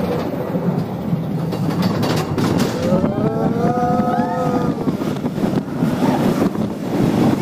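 Roller coaster train rumbling steadily along its steel track. About three seconds in, a drawn-out pitched wail rises slightly and falls away over a second and a half.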